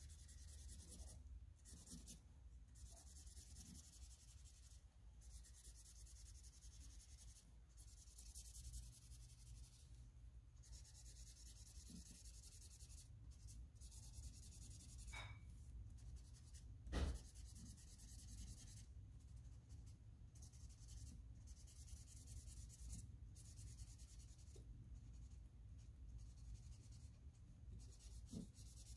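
Felt-tip marker rubbing on paper as the curtain is coloured in, a faint scratchy hiss in runs of strokes broken by short pauses. One small click partway through.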